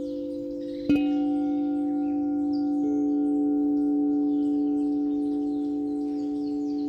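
Singing bowls ringing in long, overlapping sustained tones. One bowl is struck about a second in, adding a higher ringing tone, and another tone joins softly about three seconds in.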